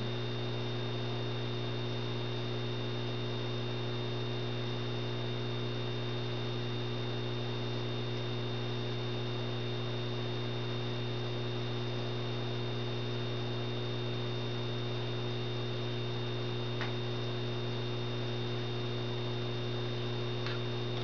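A 150-watt high-pressure sodium lamp and its ballast running with a steady electrical hum, a deep buzz with a faint high whine above it, with the lamp fully warmed up and glowing orange.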